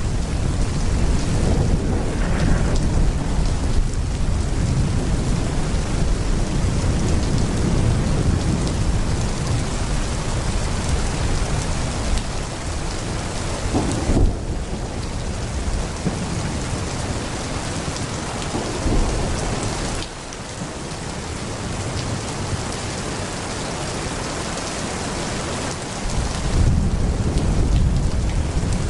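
Heavy pouring rain with a continuous low rumble of rolling thunder. The rumble thins out about two-thirds of the way through and comes back strongly near the end.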